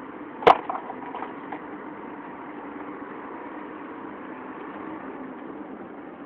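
A single sharp crack or knock about half a second in, followed by a few fainter clicks, over a steady background hum.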